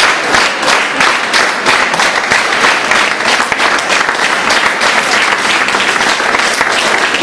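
A crowd applauding, with many hands clapping together in a steady rhythm of about four claps a second that loosens into less even clapping.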